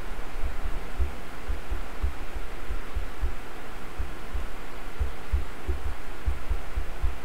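Dull low thuds of fingertips tapping a tablet's on-screen keyboard, two or three a second and unevenly spaced, over a steady hiss.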